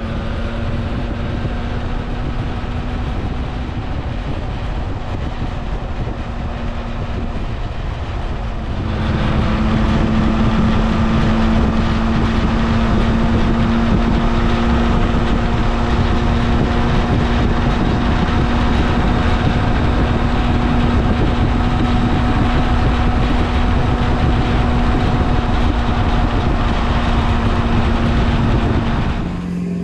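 Yamaha Tracer 9 GT+ motorcycle's three-cylinder engine running at a steady highway cruise, heard from the rider's seat under wind and road noise. About nine seconds in the sound gets louder and then holds steady.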